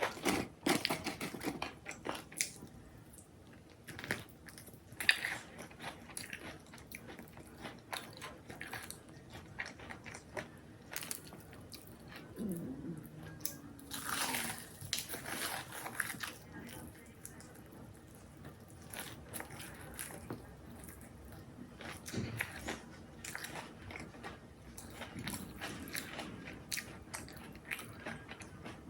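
Close-up biting and chewing of crunchy food, with many irregular crisp crunches.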